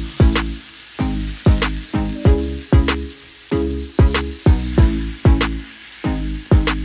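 Seasoned tri-tip searing fat-side down in a hot Le Creuset enameled cast-iron skillet, the fat sizzling steadily. Background music with a loud, steady beat plays over the sizzle.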